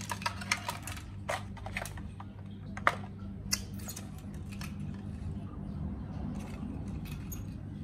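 Light plastic clicks and rattles as a toy RC helicopter's body and rotor blades are handled, densest in the first three seconds and sparser after, over a steady low hum.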